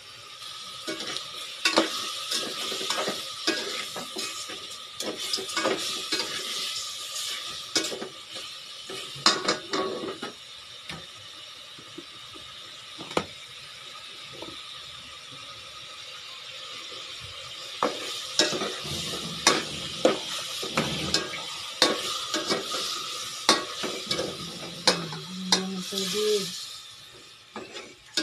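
Chicken pieces sizzling in an aluminium pot while a metal ladle stirs them. The ladle scrapes and clinks against the pot over a steady sizzle, and the stirring is sparser for a few seconds near the middle.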